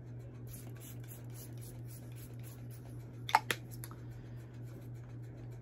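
Tarte setting spray bottle being handled, with faint rustling and ticking, then two or three short, sharp spritzes close together about three and a half seconds in, over a steady low hum.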